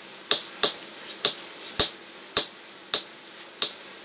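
A series of sharp, short taps or clicks, seven in all, coming unevenly about two a second over faint room noise.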